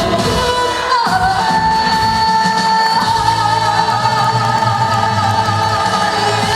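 Live Korean trot song with band backing and singing, ending on one long held note over a steady bass note from about a second in.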